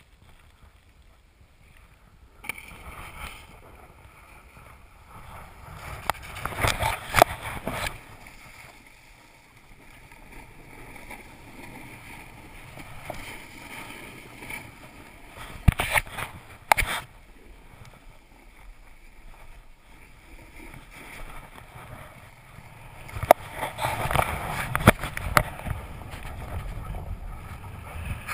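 Snowboards sliding and scraping over packed snow, a rushing noise that swells in three louder stretches, with a few sharp knocks.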